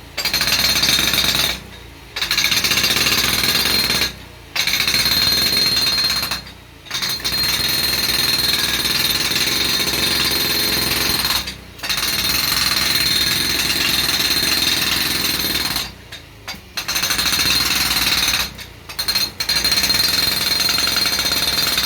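JCB Beaver hydraulic breaker with a compactor end fitted, hammering gravel scalpings down to compact them. It runs in bursts of a few seconds, with about six brief pauses between them.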